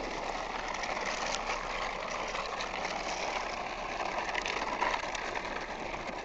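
Opel Astra coupe driving slowly over gravel: a steady, even rush of engine and tyre noise.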